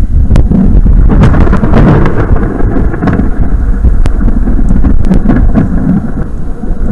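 Thunder rumbling long and loud from a nearby storm, heard from inside a parked car, with a few sharp ticks over it; the rumble eases off near the end.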